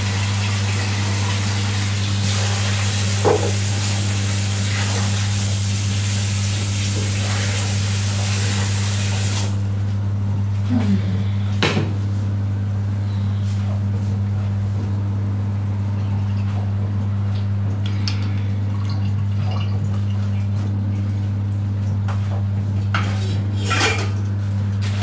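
A steady, loud low hum runs under everything, with a high hiss that stops sharply about nine and a half seconds in. A few short clinks and knocks of kitchen things being handled come at about three, twelve and twenty-four seconds in.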